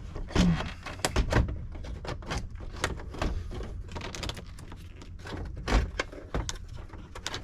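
Scattered clicks and knocks of a squarebody Chevrolet truck's instrument cluster being worked loose from the dash by hand, with louder thumps about half a second in and near six seconds.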